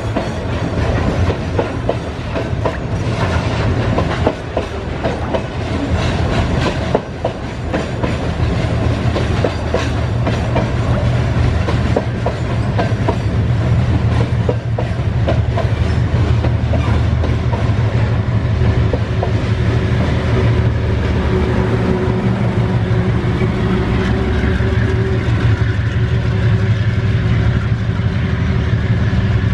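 Loaded freight wagons of a limestone train rolling past at close range: a steady heavy rumble with the rhythmic clickety-clack of wheels over the rail joints.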